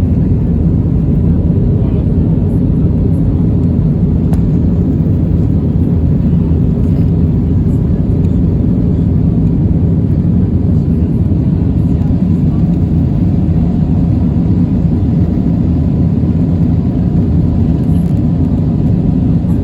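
Airliner jet engines and airflow heard from inside the cabin: a steady, loud low rumble that doesn't change.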